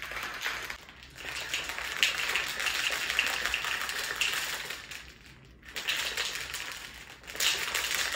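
Ice cubes rattling and clattering fast inside a plastic shaker bottle of liquid as it is shaken hard, in spells with short breaks about five and seven seconds in.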